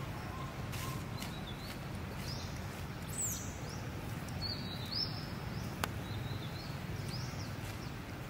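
Outdoor ambience: a steady low background hum with several short, high bird chirps. A single sharp click comes about six seconds in.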